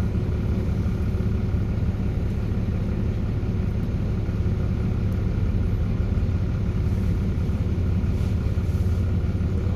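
Volvo B7RLE bus's inline-six diesel idling while stationary, heard from inside the saloon, with its loud engine cooling fan running. A steady low rumble carries a constant whine on top.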